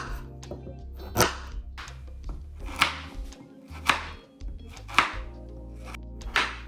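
Kitchen knife chopping raw pumpkin on a wooden cutting board: about six sharp strokes, roughly a second apart, over background music.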